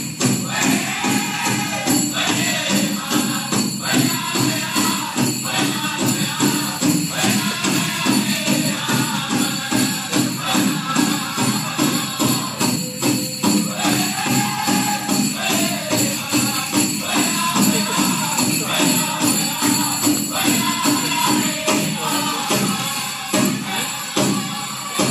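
Native American powwow-style drum song: a steady, even drumbeat with voices singing over it, and a constant jingling of bells.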